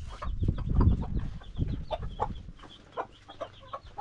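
Chickens clucking, a run of short clucks throughout, over a low rumble in the first second and a half.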